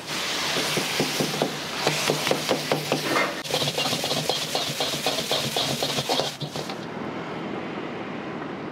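A metal ladle clanking and scraping rapidly against a wok, with food sizzling over a gas burner, as rice is stir-fried. About two thirds of the way through this cuts off and gives way to quieter, steady street noise.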